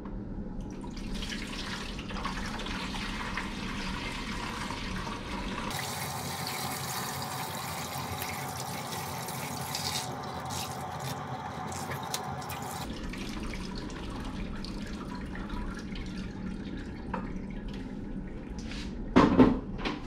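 Water poured from one plastic dehumidifier collection bucket into another: a steady splashing stream as the lower bucket fills. Near the end, a couple of loud knocks as a plastic bucket is set down.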